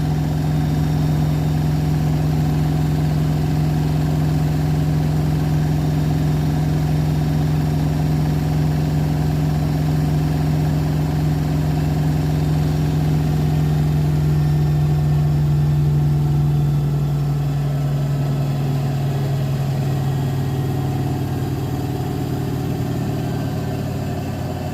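Beko WTK104121W washing machine in its final high-speed spin, the motor and drum giving a steady loud hum with a drone, with excess suds foaming up to the door seal. About two-thirds of the way through the deepest part of the hum fades and the sound eases off a little.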